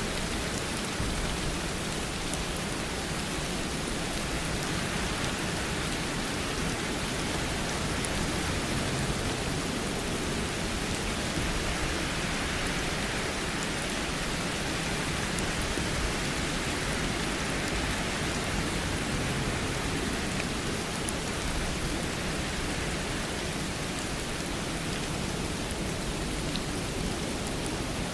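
Steady rainfall, an even hiss of rain on surfaces with a few faint drop ticks.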